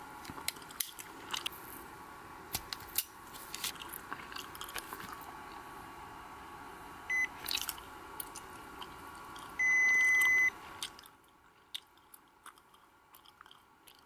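Nova Max Plus glucose and ketone meter beeping during a blood ketone test: a short beep about seven seconds in and a longer, louder beep at about ten seconds. Small clicks and rustles of gloved hands handling the meter and test strip run throughout.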